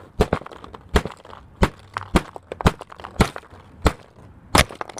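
Hammer striking a plastic pen cap over and over: about nine sharp blows, roughly two a second.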